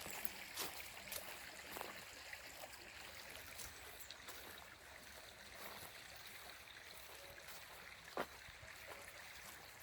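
Small river or stream trickling over rocks: a faint, even rush of water with scattered small ticks, and one sharper click about eight seconds in.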